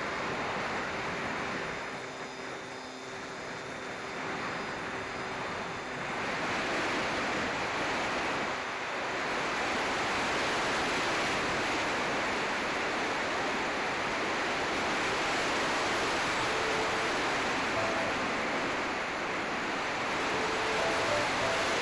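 Wind rushing over the microphone of a small camera carried on a flying RC plane. The steady rush grows louder about six seconds in, with faint steady tones under it before that.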